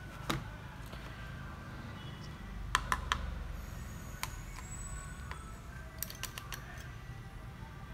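Small sharp clicks and taps of a screwdriver and fingers on the parts inside an open laptop: one just after the start, a quick run of three about three seconds in, and a cluster about six seconds in. A low steady hum runs underneath.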